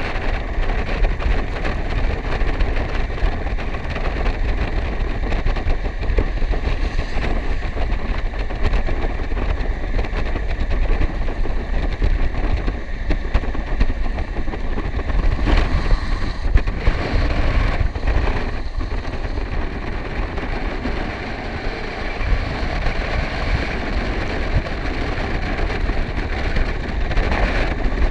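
Wind buffeting the microphone at speed, with inline skate wheels rolling and hissing over wet asphalt; a steady rush with a few brief jolts in the middle.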